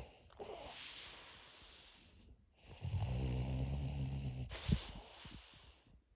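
French Bulldog snoring in its sleep: two snoring breaths, the second, about three seconds in, louder and deeper.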